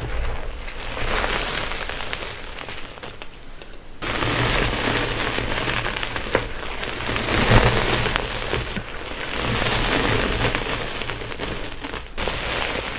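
Gym chalk blocks being crushed and crumbled by hand, a dense crackling crunch, with sudden cuts between takes about four seconds in, near nine seconds and near the end.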